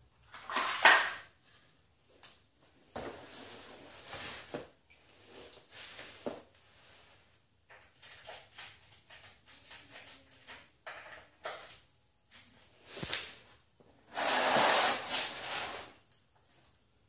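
Irregular scraping, rustling and knocks of hand work around a car. The longest and loudest noisy burst comes near the end and lasts about two seconds.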